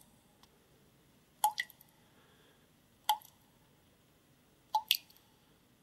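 DREAMEGG D3 Pro white noise machine playing its raindrops setting through its speaker: faint single water-drop plinks, each a sharp click with a short ringing tone, repeating about every second and a half.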